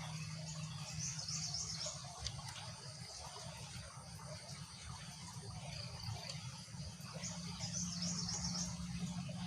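Faint background of insects trilling in short high-pitched bouts, one about a second in and another near the end, over a low steady hum.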